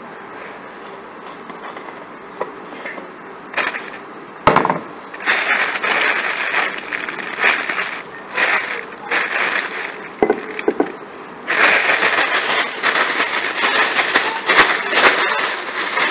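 A couple of knocks as a wooden spoon strikes a plastic tub, then a thin plastic bag crinkling and rustling in bursts as it is handled and twisted shut, with the air pressed out to store the dough. The crinkling grows louder near the end.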